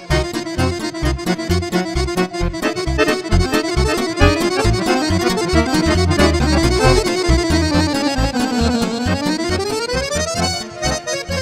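Button accordion playing a fast Romanian lăutărească tune live, with a pulsing bass underneath. Near the end a quick run of notes slides down and climbs back up.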